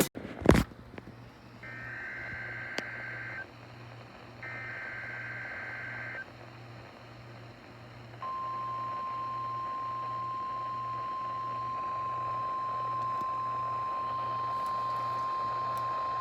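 Emergency Alert System SAME header from a NOAA Weather Radio receiver: two harsh, buzzy digital data bursts about two seconds apart, then about eight seconds in the steady 1050 Hz weather-radio warning alarm tone starts and holds. A faint pulsing hum lies underneath.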